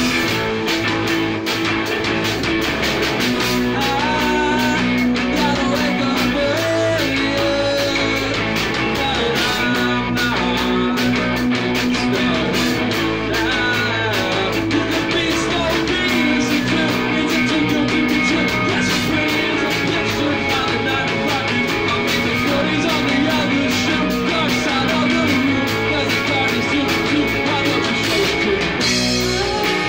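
Rock band playing live: two electric guitars, bass guitar and drum kit, loud and steady.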